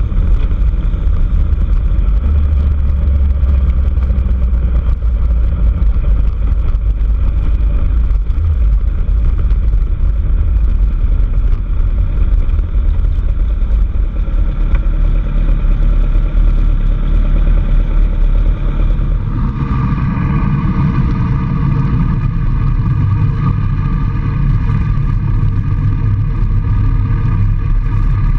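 A motor vehicle's engine running steadily while under way. About two-thirds of the way through, the engine note shifts and becomes brighter and higher.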